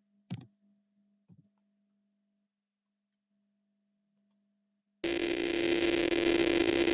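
Two short clicks, then about five seconds in the simulated speaker output of a 555-timer warbler circuit starts suddenly and loudly: a harsh, static-like buzz with a steady tone running through it.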